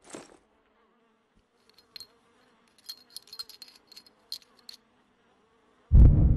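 Faint insect buzzing with scattered small high ticks, then a sudden loud explosion about six seconds in, heavy in the low end and dying away slowly.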